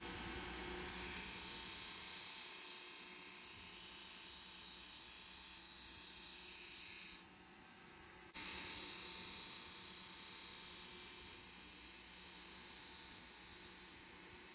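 An abrasive power tool working the steel knife blank: a steady high hiss that breaks off suddenly about seven seconds in, returns about a second later, and runs on.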